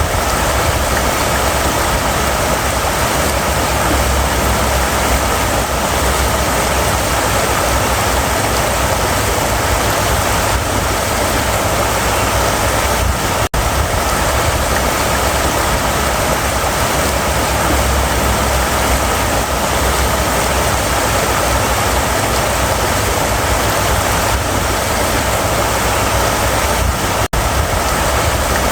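River water running steadily over rocks, a continuous rushing with a low rumble beneath it. It cuts out for an instant twice, once about halfway through and once near the end.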